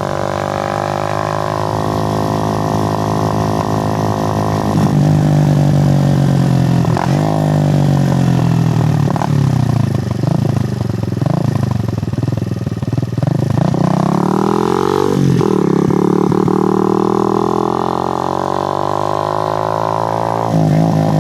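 Suzuki GN125's single-cylinder four-stroke engine heard from on the moving bike. It runs steadily at first, then gets louder about five seconds in, and its pitch rises and drops sharply several times before settling to a steady run near the end.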